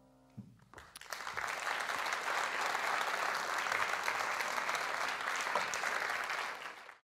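The last piano chord dies away and a theatre audience breaks into applause, which builds within the first second or so and holds steady until it is cut off near the end.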